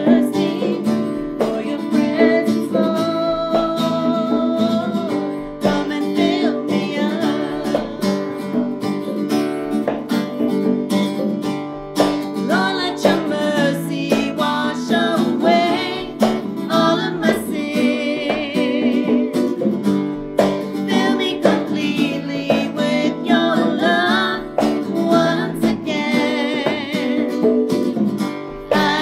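Live worship song: strummed acoustic guitar, electric guitar and hand-played conga drums, with female voices singing.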